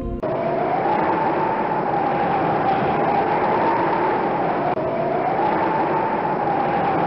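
Strong wind howling: a steady rushing hiss with a whistling note that climbs about a second in, dips just before five seconds and climbs again.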